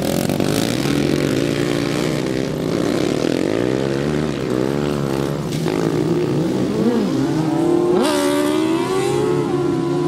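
Several racing lawn mowers' engines running together as the mowers pass on a dirt track. Their pitch rises and falls with the throttle, and about eight seconds in one engine revs sharply up to a high whine.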